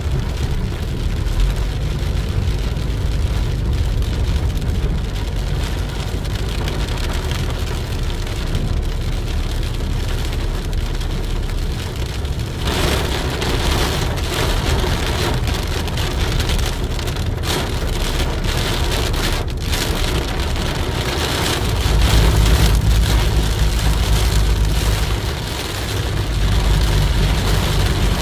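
Rain falling on a car as it drives, over a steady low road rumble; the rain hiss grows louder about halfway through.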